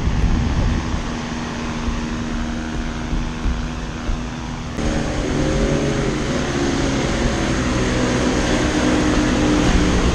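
Wind buffeting the microphone over a steady low drone; about five seconds in the sound changes abruptly to a louder parasail tow boat's engine running, its pitch wavering slightly.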